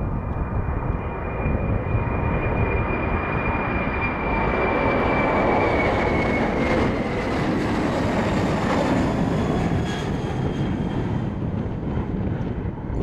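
Boeing 747 freighter's jet engines at takeoff power: a steady heavy roar with a high whine that slowly falls in pitch as the jet lifts off and passes, loudest about halfway through.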